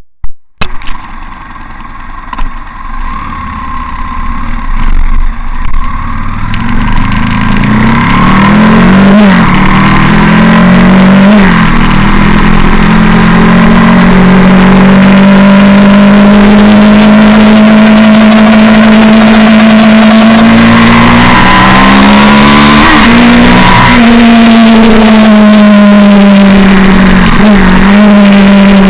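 Aprilia Tuono 1000 R's V-twin engine pulling away and accelerating through the gears. Its pitch climbs and drops at each shift, then it runs at a steady pace with a few brief rises and dips. Wind rush on the handlebar-mounted camera's microphone runs under the engine.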